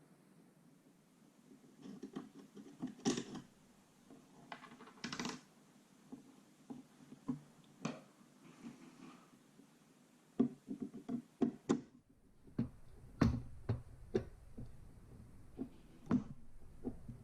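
Irregular clicks, knocks and light scrapes of a metal M4-style gel blaster being handled and taken apart. A low background hum comes in about two-thirds of the way through.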